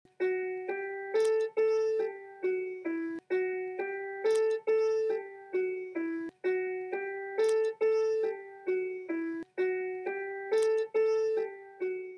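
Keyboard playing a simple melody of single notes, each struck sharply and fading, with the same short phrase repeated about four times.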